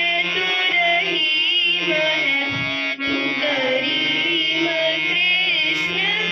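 A song sung with harmonium accompaniment: the harmonium holds sustained reedy notes under a singer's wavering melody.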